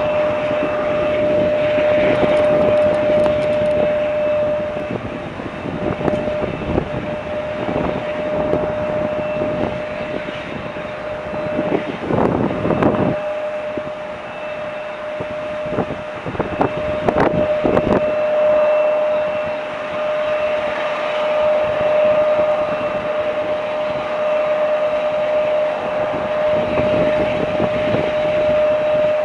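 Airport noise: a steady mechanical whine held at one pitch, with gusts of wind buffeting the microphone.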